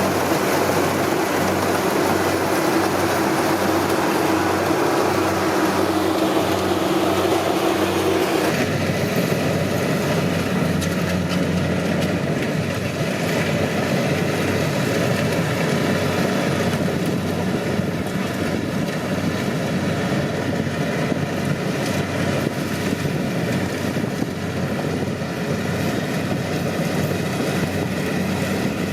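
Kubota DC-70 rice combine harvester running steadily under its diesel engine. The sound changes abruptly about eight seconds in.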